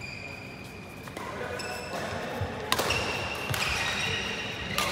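Badminton rackets striking feather shuttlecocks: two sharp hits, one about halfway through and one near the end. Between them come short high squeaks of shoes on the synthetic court mat.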